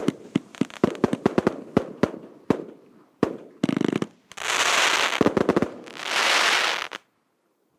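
A 100-shot, 1.2-inch professional firework cake firing: a quick, uneven string of sharp shots for about three seconds, a fast rattle of pops just before the four-second mark, then two long crackling hisses that stop dead about seven seconds in.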